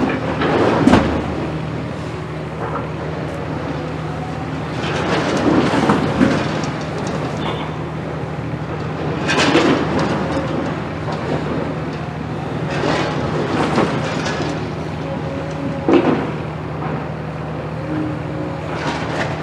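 Demolition excavator's diesel engine running steadily, with repeated crunching and clattering of breaking concrete and masonry rubble every few seconds. The sharpest crash comes about a second in.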